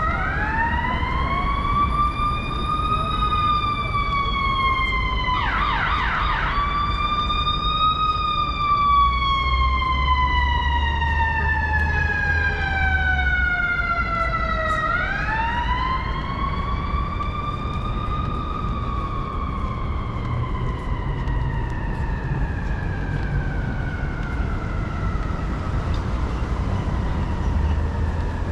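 Emergency vehicle siren wailing, its pitch rising and then falling slowly in long sweeps, with a brief fast warble about six seconds in. A low traffic rumble runs underneath.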